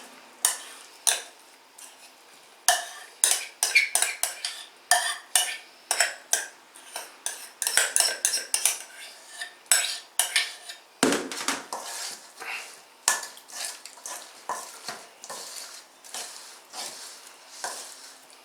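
Utensil clinking and scraping against a mixing bowl as potato salad is stirred together, in a quick irregular series of clicks, with one heavier thump about eleven seconds in.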